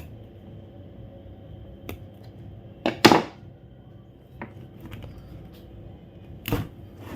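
Handling noise of a UTP network cable's outer jacket being pulled off by hand: a few short scrapes and knocks, the loudest about three seconds in and another near the end, over a faint steady hum.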